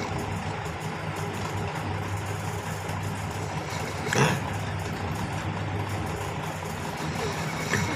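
Snoring: a steady low rumble, with a short, louder sound about four seconds in and a smaller one near the end.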